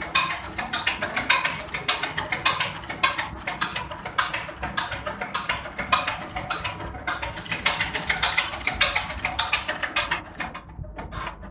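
Four-cylinder inline diesel injection pump for an Isuzu engine running on a test bench, giving a fast, dense ticking from its injection strokes. The ticking thins out and drops briefly near the end.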